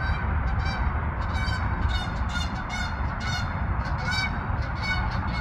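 A flock of geese honking as they fly overhead: a run of short, repeated honks, two or three a second, over a steady low rumble.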